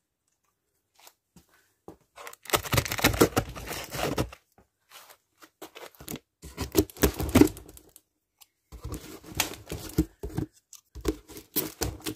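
Packing tape being ripped and cardboard flaps pulled on a cardboard shipping box as it is opened: four bursts of tearing and rustling, the first about two and a half seconds in.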